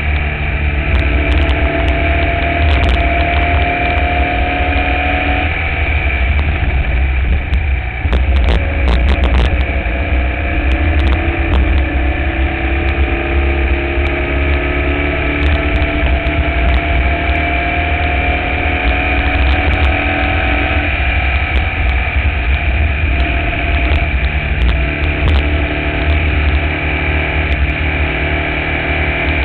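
Formula Vee race car's air-cooled Volkswagen flat-four engine running hard, its pitch climbing slowly for several seconds and then dropping, twice, as it pulls through the gears. A heavy low rumble runs underneath, with a cluster of sharp ticks a third of the way through.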